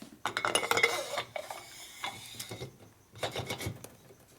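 Metal engine parts and hand tools clinking and rattling against each other as they are handled: a rapid burst of clinks at the start, then a second shorter burst about three seconds in.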